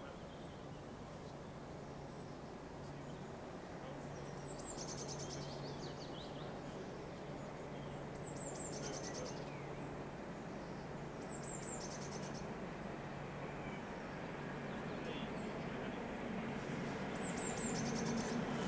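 A songbird singing the same short, high phrase about four times, a few seconds apart, over a steady low hum. A low background rumble grows louder near the end.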